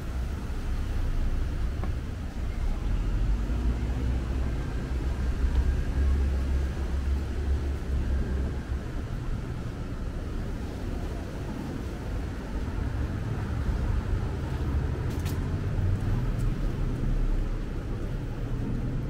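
City street ambience: a low, uneven rumble of road traffic, with a short click about fifteen seconds in.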